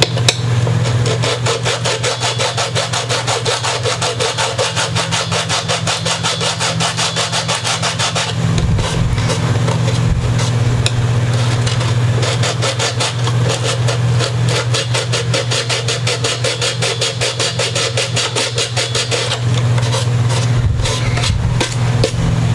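A hand file being worked back and forth in rapid, even strokes, giving a steady rasping rhythm. A constant low hum runs underneath.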